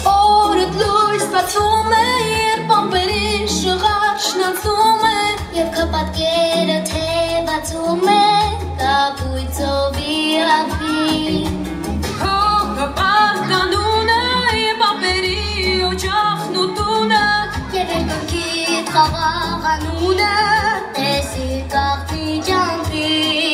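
Young female voices singing a pop song into microphones over a backing track with a pulsing bass line, played through stage loudspeakers.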